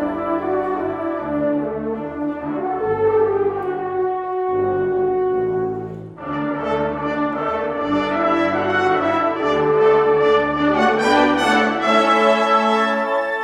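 Community concert band playing, with sustained brass chords to the fore. The music thins and briefly drops out about six seconds in, then the full band comes back in.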